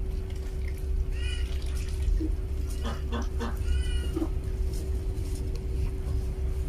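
Newborn puppies give two short, high squeaks while nursing, about a second in and again near the middle, with a few faint clicks between. A constant low rumble and a steady hum run underneath.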